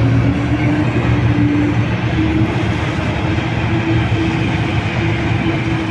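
Large diesel engine of heavy mining machinery running steadily under load, a deep drone whose pitch creeps slightly upward.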